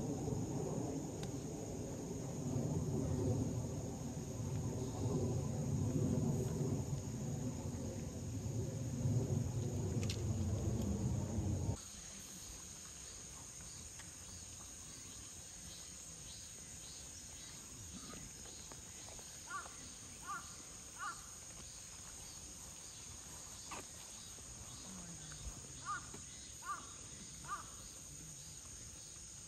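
Insects trilling steadily at a high pitch. For about the first twelve seconds a louder low rumble lies under it and cuts off abruptly; later come short chirps, three at a time, twice.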